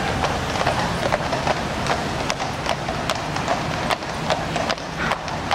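Several shod horses walking on a paved road, their hooves clip-clopping in an uneven overlapping rhythm of sharp strikes over a steady background noise.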